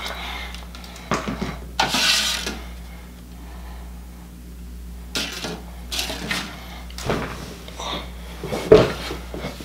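Handling noises at a table as a burger is held and adjusted: scattered soft knocks and rustles, a breathy rush about two seconds in, and a sharper thump near the end, over a steady low hum.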